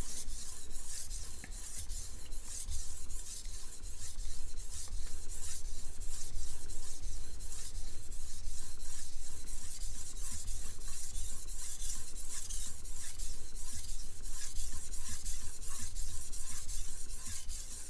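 Chef knife blade scraping back and forth across a whetstone in full sharpening strokes, an even, rasping run of strokes that keeps going throughout.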